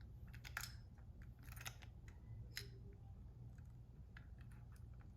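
Faint clicks and scrapes of hard plastic as a Plarail toy train's body is pried apart to reach its battery. There are three sharper clicks about a second apart, then lighter ticks.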